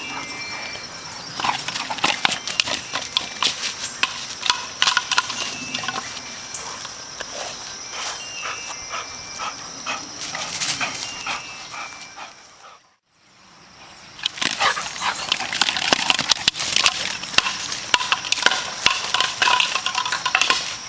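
Scattered clicks and crunches of a yellow Labrador's paws and steps on dry fallen leaves and cobblestones as he carries a hard plastic Jolly Ball about. The crunching thickens after a brief near-silent gap about halfway through.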